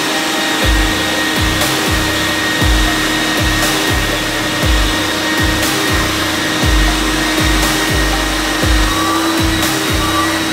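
Bissell carpet cleaner's vacuum motor running with a steady whine, over background electronic music with a regular deep thumping beat.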